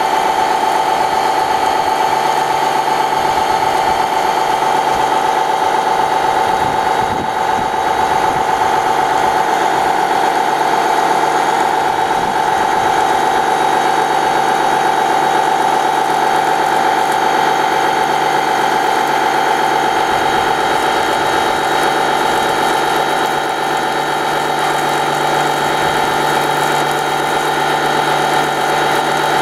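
Radio-controlled model fire truck running steadily while its water cannon sprays: a constant mechanical hum with a strong, steady whine.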